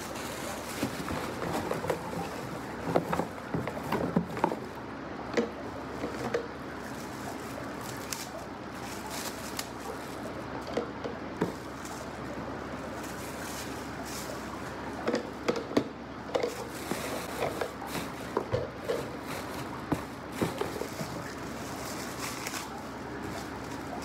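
Silicone kitchen utensils being unpacked and set into a utensil holder: scattered light taps, knocks and packaging rustles, bunched in two busy stretches, over a steady background hiss.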